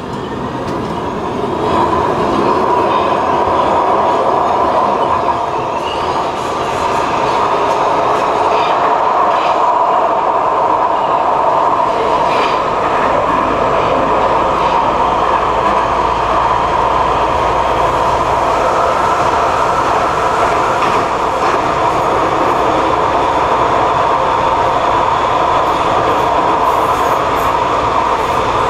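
Rotterdam metro train running at speed, heard from inside the passenger car: a steady rumble and rail noise that grows louder about two seconds in, with a few scattered clicks in the middle. The train is running through a tunnel.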